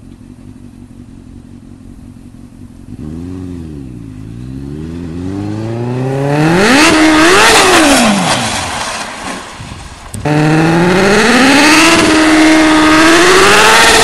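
Motorcycle engine: a low steady run at first, then revving and accelerating, its pitch climbing to a loud peak about halfway and falling away again. About two-thirds of the way through, a loud engine comes in abruptly, its revs rising and falling.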